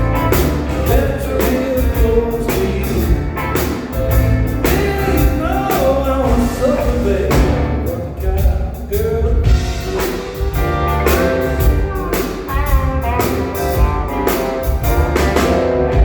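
Rock band playing a blues-rock number: singing over drums, bass and guitar, with a steady beat.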